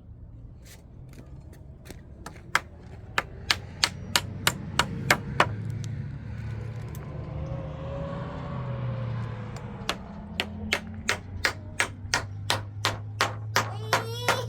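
Hammer blows struck repeatedly at an even pace of about three a second, over a steady low hum.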